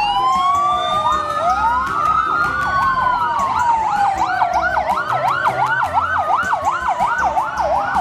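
Fire engine sirens, several at once: slow rising-and-falling wails overlaid with a fast yelping warble that starts about two and a half seconds in.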